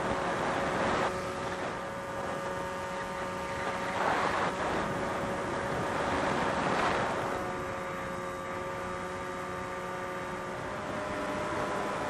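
FPV drone running with a steady whine of several held tones, over rushing wind noise that swells three times in the first seven seconds.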